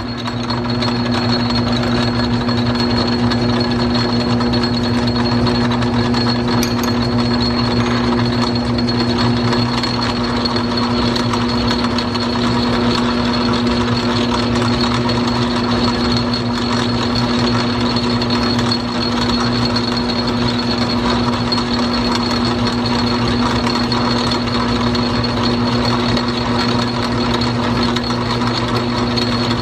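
Small Atlas metal lathe running steadily under power, set up for cutting a 24-threads-per-inch thread: a constant hum with a steady high whine.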